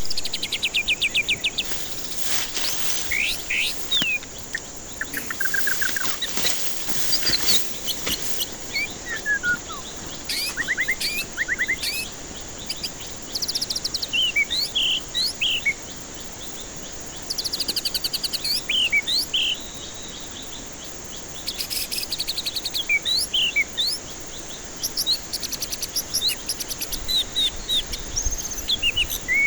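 White-rumped shama (murai batu) singing a varied song of clear whistles, sharp upswept and downswept notes and fast rattling runs of repeated notes, in phrases broken by short pauses. A steady high hiss runs underneath.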